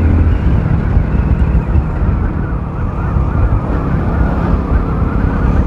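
Wind buffeting the microphone over the running engine of a Hero Splendor single-cylinder commuter motorcycle at riding speed, a steady low rumble.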